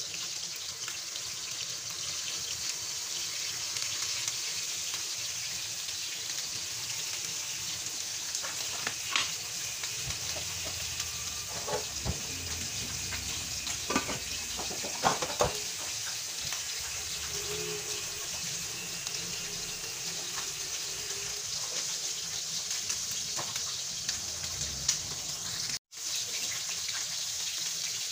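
Milkfish fillets sizzling steadily in hot oil in a frying pan, with a few sharp clicks around the middle.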